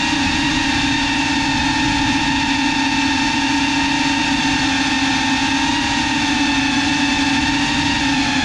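FPV quadcopter's brushless motors and propellers whining at a nearly steady pitch that wavers slightly, with a rushing noise of air and props, as picked up by the drone's onboard camera.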